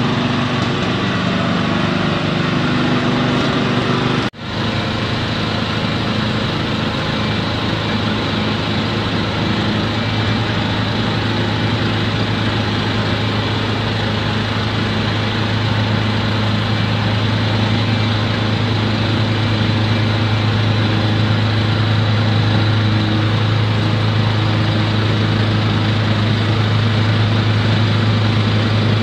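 Machinery running steadily, with a strong low hum under a wide noise. The sound cuts out for a moment about four seconds in.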